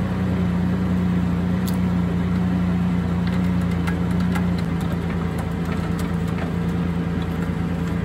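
A vehicle engine idling steadily close by, with a few light metallic clicks from the trailer coupler and safety chains being handled.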